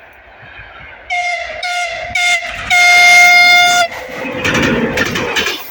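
TEP70 diesel locomotive's horn sounding three short blasts and then one long blast, a steady pitched tone. After it the locomotive and its passenger train run past with a rumble.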